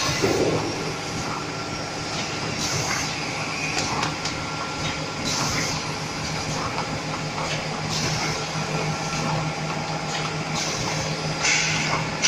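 Automatic packaging machine running, with a steady mechanical hum, light clicking and short hissing bursts every few seconds.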